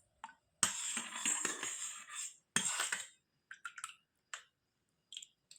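Kitchen utensils clinking and scraping as the cooled cough decoction is strained: about a second and a half of busy scraping and rattling, a sharp knock, then a few short taps.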